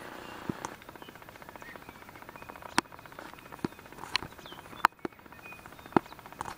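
Rural outdoor ambience: a steady, fast-pulsing buzz with several sharp clicks scattered through it, about eight in all.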